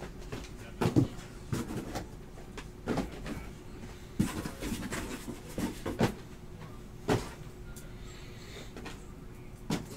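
Cardboard trading-card boxes being shifted and set down on a desk: irregular knocks and scuffs, sometimes two or three close together, with a short lull near the end.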